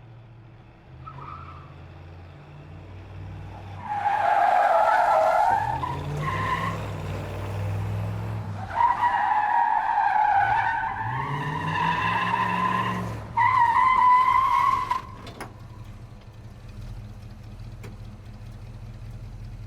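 Car engine revving while the tyres squeal in three long skids. The engine then settles to a steady idle and cuts off near the end.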